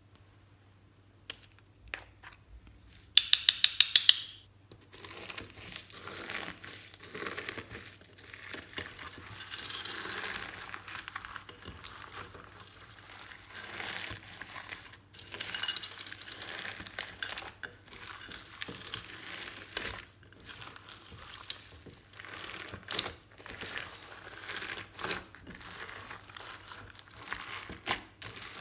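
Hands pressing and kneading glossy slime mixed with foam beads and sequins, making irregular crackling, crunchy squishing. About three seconds in, a quick run of about eight sharp clicks is the loudest sound.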